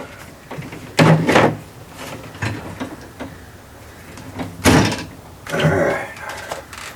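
Several separate clacks and knocks of gear being handled at a shooting bench. The sharpest comes about five seconds in.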